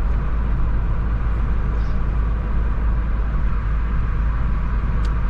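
Car driving in traffic: a steady low road and engine rumble, with one short click near the end.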